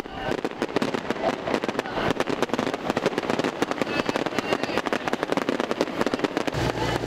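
Fireworks crackling: a dense, continuous run of sharp crackles and pops.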